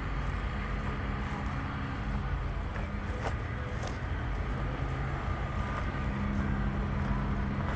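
An engine running steadily at an even, low pitch over a low rumble.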